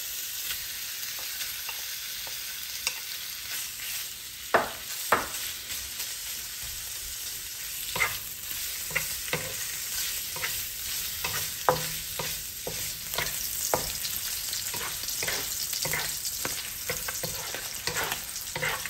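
Chicken innards stir-frying in a hot pan: a steady sizzle, with a spatula scraping and knocking against the pan many times.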